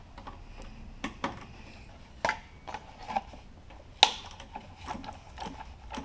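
Irregular clicks and light knocks of a wrench working loose the half-inch bowl nut under a Tecumseh lawn mower engine's carburetor, to drain a fuel sample.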